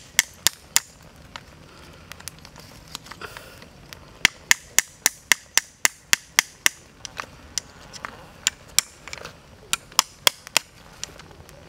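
Freshwater snails grilling in their shells on hot charcoal embers, giving off dozens of sharp clicks and pops. The clicks come irregularly at first, then in a quick run of about three a second in the middle, then irregularly again.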